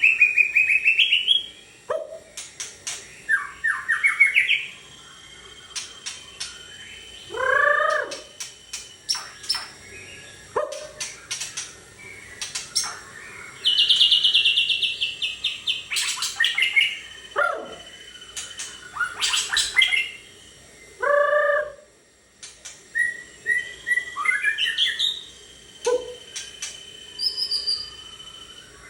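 White-rumped shama (murai batu) singing a long, varied song of rapid trills, sliding whistles and sharp chips in phrases with short pauses, with a few lower, rougher notes among them.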